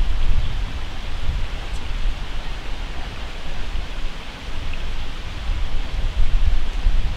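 Wind rumbling on the microphone over a steady hiss, the rumble rising and falling in gusts.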